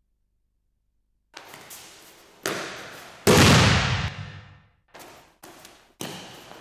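Bodies landing on tatami mats in aikido throws and breakfalls: a run of six thuds, the third the loudest, each trailing off in a hall's echo.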